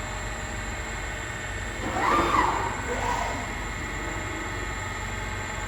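Veker VK-4300 CNC milling machine running a program: a steady machine hum with several constant tones. About two seconds in, a louder wavering sound rises over it for a little over a second.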